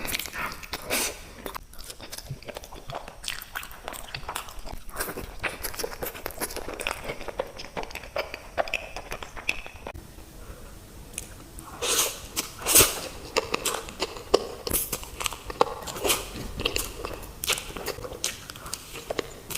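Close-up eating sounds: crunchy sweets being bitten and chewed, a dense run of sharp crunches and crackles. The sound changes about halfway through, with the loudest crunches shortly after.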